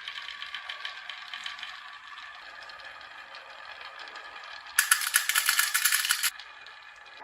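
Marbles rolling along a toy marble run track with small clicks, then a loud burst of rapid clattering about five seconds in that lasts a second and a half.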